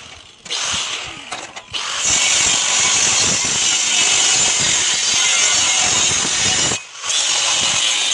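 Plasma cutter cutting steel plate: a loud, steady hiss that starts about half a second in, stops briefly twice and resumes.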